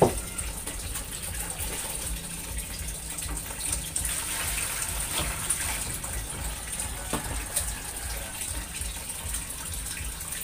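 Steady rush of running water, with a few sharp knocks of a knife against a wooden cutting board.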